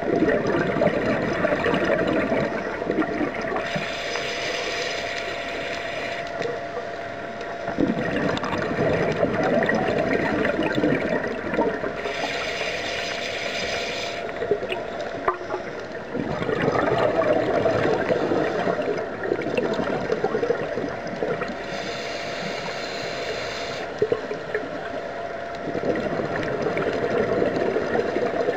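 Scuba diver breathing through a regulator underwater: three hissing inhales about nine seconds apart, each followed by a long rush of bubbling exhaled air.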